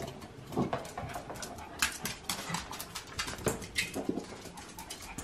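Small Pomeranian-type dogs moving about, their claws clicking quickly on hard stairs and floor, with a few short whimpers.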